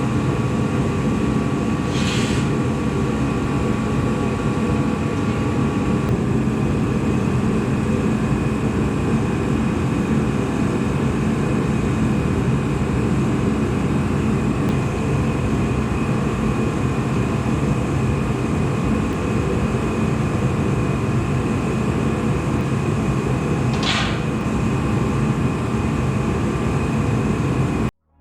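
Steady, loud machine noise, like a motor or engine running, heavy in the low range. Two brief hisses break through about two seconds in and again near the end.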